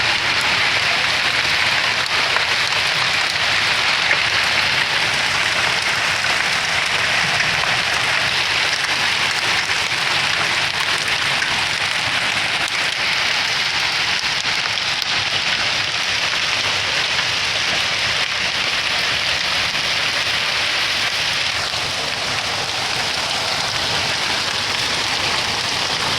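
Heavy downpour of rain mixed with hail, a dense, steady hiss of pouring water and pellets that does not let up.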